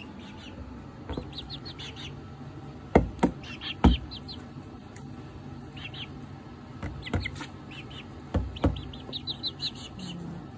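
Young chickens peeping in quick runs of short high chirps, with a few sharp loud knocks of beaks pecking at a cardboard box, the loudest a cluster about three to four seconds in and more later on.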